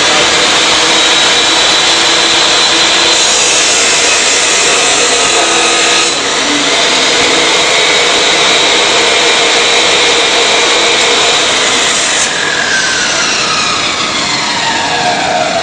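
Abrasive cut-off saw cutting steel bar stock: a loud, steady grinding hiss over the whine of the motor at full speed. About 12 seconds in the whine starts falling steadily as the saw winds down.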